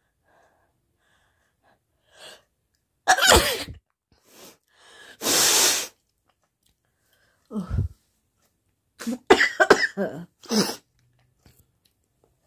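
A woman sneezing in fits: a loud sneeze about three seconds in, a long hissing nose blow soon after, another sneeze, then a quick run of sneezes and coughs near the end.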